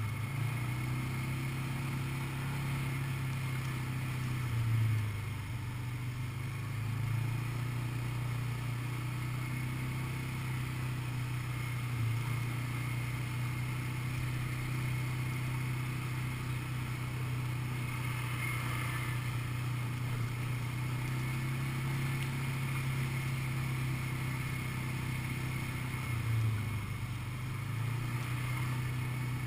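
ATV (quad bike) engine running steadily under way on a dirt track, its note briefly dipping and swelling about five seconds in and again near the end.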